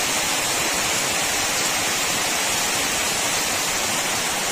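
Steady, even hiss of water from a heavy flood, with no breaks or changes.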